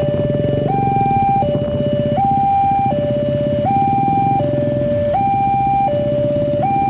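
Railway level-crossing warning alarm from the horn loudspeaker on the crossbuck: an electronic two-tone signal swinging between a higher and a lower note, each held about three-quarters of a second, warning that a train is approaching. A low rumble runs underneath.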